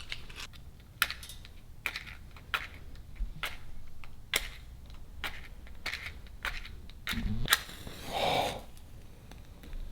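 Scattered light clicks and taps, irregular, about one every half second to a second, with a short hiss about eight seconds in.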